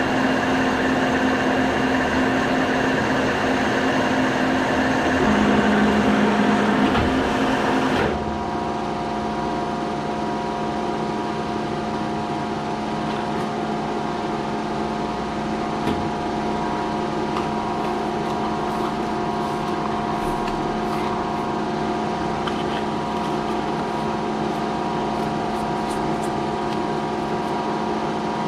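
Milling machine running, its large end mill cutting aluminium block stock in a steady whirring machining noise. About eight seconds in the sound changes abruptly to a quieter steady hum of the spindle turning a cone-shaped cutter.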